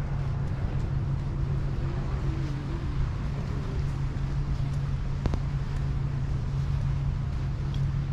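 A steady low engine hum with wind rumbling on the microphone, and a single sharp click about five seconds in.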